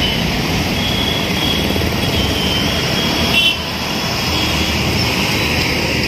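Street traffic with three-wheeler auto rickshaws and a truck running past: a steady mix of engine rumble and road noise.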